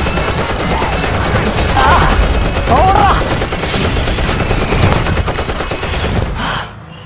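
Rapid, continuous machine-gun fire, a dense string of shots that cuts off suddenly about six and a half seconds in. It is a sound effect dubbed over a wooden toy rifle being mimed.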